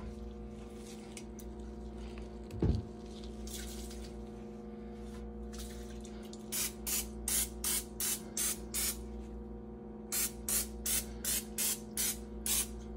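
Cooking-oil spray hissing in quick short squirts, about three a second, in two runs: one about halfway through and another near the end. A steady low hum runs underneath, with a single knock a little under three seconds in.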